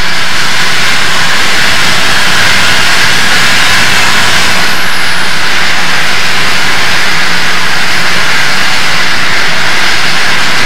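Loud, steady rushing roar of a train running along the track, heard from the front of the moving train, with no separate exhaust beats.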